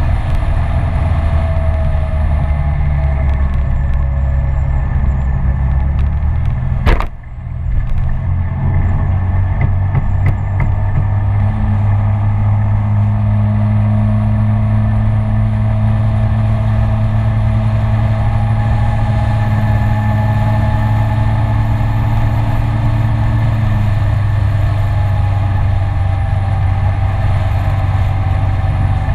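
Kymco Citycom S 300i scooter's single-cylinder engine running steadily at road speed, with wind rushing over the microphone. A sharp knock comes about seven seconds in, followed by a short drop in level; from about twelve seconds the engine settles into an even, held note.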